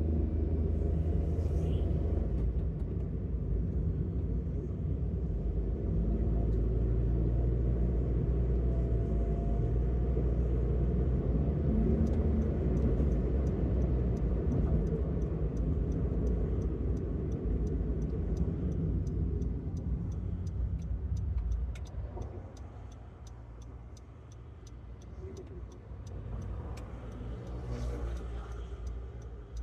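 Road traffic: cars passing with a steady low engine and tyre rumble, which eases off about two thirds of the way through and builds again near the end. A faint, regular ticking runs through the second half.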